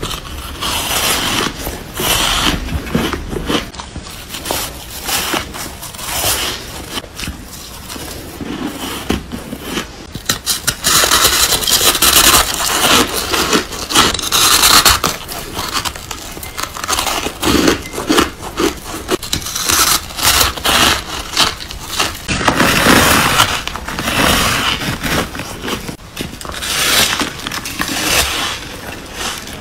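Bites into and chewing of soft, snow-like ice: a dense, continuous run of crackly crunches, louder for stretches around the middle and about three-quarters of the way in.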